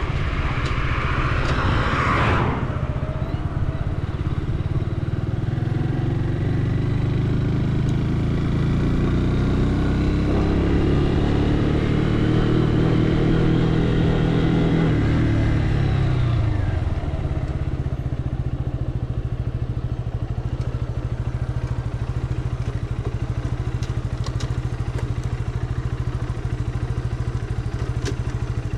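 Junak M12 Vintage 125 cc single-cylinder engine running under way, its pitch rising and falling, then dropping to a steady idle about seventeen seconds in as the motorcycle comes to a stop.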